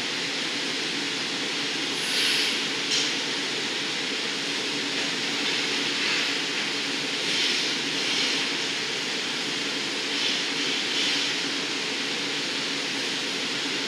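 Steady roar of the gas-fired glory holes and furnace of a hot-glass studio running, with a low hum under it and brief hissing rises a few times.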